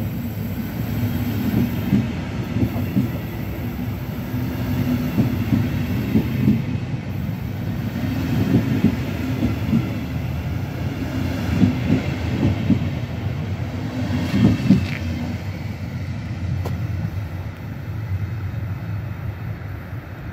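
n-Wagen passenger coaches rolling past as a train pulls out of the station, a steady rumble with wheels clacking over the rail joints. The sound fades near the end as the last coach moves away.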